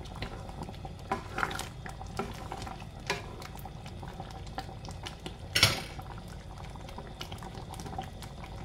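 Coconut-milk stew of squash, yardlong beans and shrimp simmering with small bubbling pops in a pan, stirred with a wooden spatula. A little past halfway, the spatula makes one louder scrape against the pan.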